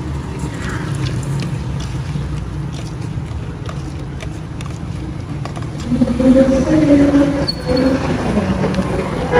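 Steady low rumble of street traffic, with faint clicks of a steel spoon stirring sweet potato cubes in a plastic bowl. About six seconds in, louder pitched sounds rise over the rumble.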